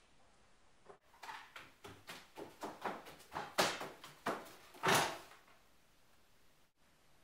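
Footsteps on a wooden floor coming closer: a quick run of knocks, about four a second, growing louder, ending in a heavier thud about five seconds in as a large bundle of cord lands on a wooden table.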